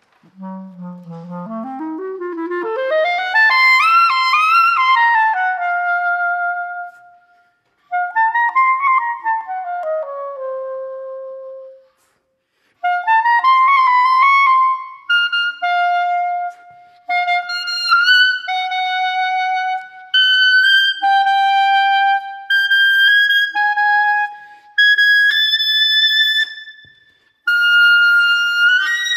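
Solo clarinet playing unaccompanied. It starts on a low note and runs quickly up into the high register. Two short phrases follow, each broken off by a brief pause, and then a string of held notes steps gradually higher.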